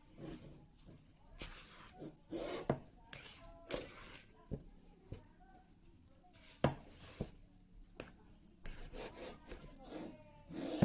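Orange plastic spatula stirring and scraping stiff, half-kneaded yeast dough in a plastic bowl as butter is worked in. Irregular rubbing strokes, with a few sharp knocks of the spatula against the bowl.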